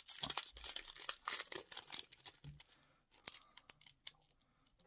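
Foil wrapper of a Pokémon card booster pack crinkling and tearing as it is worked open by hand, a dense run of short crackles that thins out into a few scattered ticks after about three seconds.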